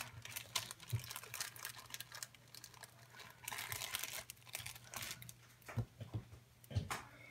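Clear plastic zip-top bag being pulled open and crinkled as slime is taken out of it: a run of small crackles and clicks, densest about halfway through. Near the end come soft sticky clicks of the slime being squeezed in the hands.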